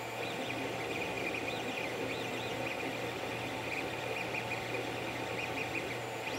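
Creality CR-10 3D printer running mid-print: its stepper motors whine in short rising and falling sweeps as the print head moves, over a steady low hum.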